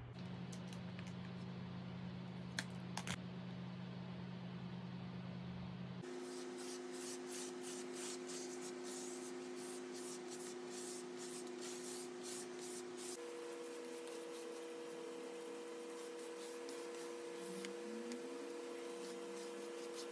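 Puzzle glue being spread by hand over a finished jigsaw puzzle: quick repeated rubbing strokes, about three a second, starting about six seconds in, over a low steady hum. A couple of light clicks come before the strokes.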